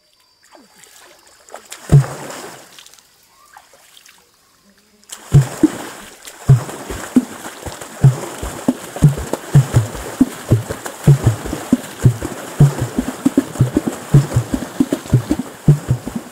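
Liquindi water drumming by Baka women: hands striking the river's surface, making deep hollow thuds and splashes. One strike comes about two seconds in; from about five seconds on the strikes run in a fast, steady rhythm, several a second, over constant splashing.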